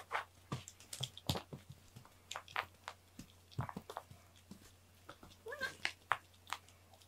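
Scattered light taps and knocks as cats pounce on and bat a toy mouse on a string across foam floor mats, with one short cat meow about five and a half seconds in.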